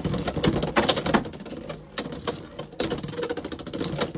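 Two Beyblade X spinning tops battling in a plastic stadium: a rapid, irregular run of sharp clicks and clacks as they knock against each other and the stadium walls.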